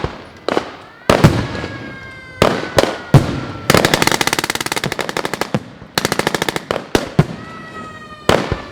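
Reenactment gunfire with blanks: single loud shots in the first three seconds, then a long rapid burst of machine-gun fire from about four seconds in and a shorter burst near six seconds. Scattered single shots follow, with faint tones sliding slowly down in pitch behind them.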